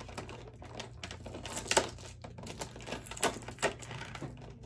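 Clear plastic blister tray clicking and crackling as fingers pry accessories out of it: a run of irregular sharp clicks, the loudest a little under two seconds in.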